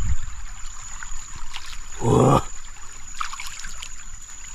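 Water trickling in a small creek channel, with a person's short voice sound about two seconds in.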